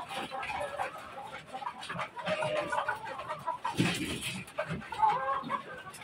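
Several caged chickens clucking, their short calls overlapping, with one louder call about five seconds in.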